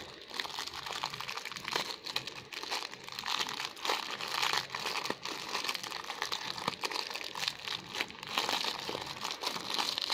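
Plastic toy packaging crinkling and crackling as it is handled and opened, a continuous irregular rustle of many small crackles.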